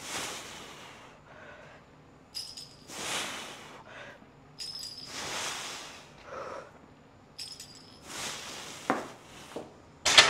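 Barbell back-squat reps: chains hanging from the bar clink at each rep, each time followed by a sharp breath, about one rep every two and a half seconds. Near the end comes a sharp metal clank as the bar is set back in the rack.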